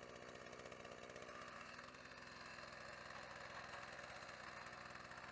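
Faint, steady running of a two-stroke chainsaw engine, an Echo CS-4400.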